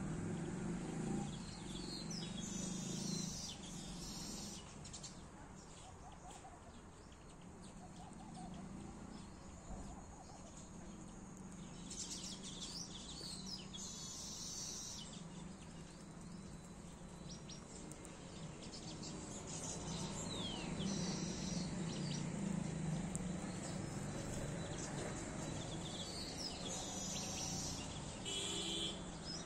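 Small birds chirping in short bunches of high calls several times, over a steady low background hum.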